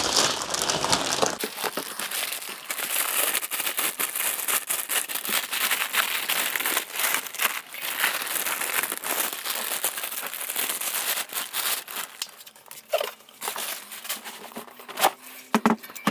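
Plastic packaging bag crinkling and rustling steadily as a boxed solar inverter is worked out of it, thinning out near the end into a few crackles and a couple of knocks as the unit is lifted out.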